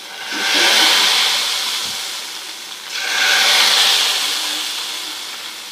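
Smoking-hot ghee poured in two goes over ground spices on cooked haleem, the tempering (tadka) sizzling up sharply each time and fading over about two seconds.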